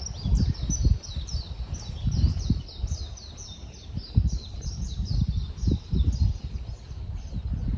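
A songbird singing a long run of short, falling chirped notes, about three a second, over low gusty rumble.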